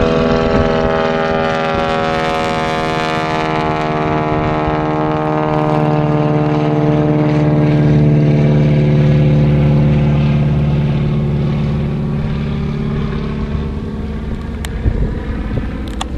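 Biplane's piston engine and propeller droning in flight overhead, the pitch sliding lower as it passes and the sound swelling to its loudest about halfway through before slowly fading.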